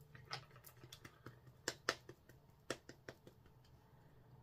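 Faint, irregular light clicks and taps, about half a dozen, as a clear acrylic stamp block with a rubber stamp on it is handled over paper on a craft mat.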